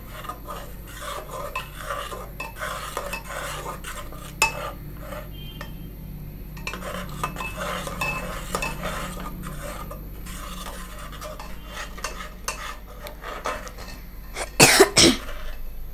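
A spoon stirring and scraping spice paste in a cooking pot as it is fried down for a curry base, with many small clinks and scrapes. Two loud knocks against the pot come near the end.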